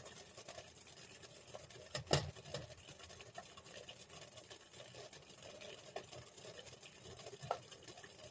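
Wooden chopsticks clicking and scraping against a nonstick pot while mochi is turned in kinako powder. A few light clicks, the loudest a knock about two seconds in, over a faint low background.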